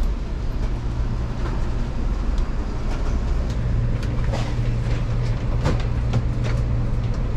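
Steady low rumble and hum inside an Amtrak Acela passenger car, with scattered light clicks and knocks over it.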